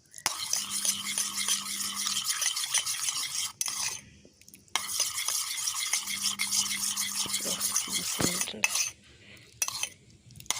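A spoon stirring honey into freshly squeezed leaf juice, scraping and clicking against the sides of a small vessel. It stops briefly twice.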